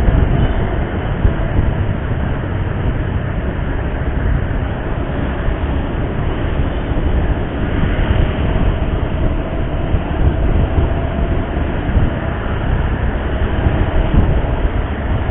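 Steady road noise from riding a motorcycle in traffic: an even rumble, heaviest at the low end.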